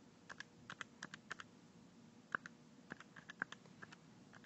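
Keys being tapped in a quick, irregular run of faint clicks, about twenty in all, as a division is keyed in to get the answer.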